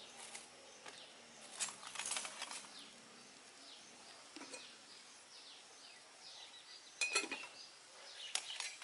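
Metal spoon clinking and scraping against a cooking pot and bowl in a few scattered knocks, the loudest a ringing clink about seven seconds in.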